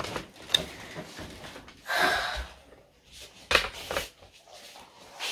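Bedclothes rustling as a blanket is thrown off and someone gets out of bed, with a few sharp knocks; the loudest comes about three and a half seconds in.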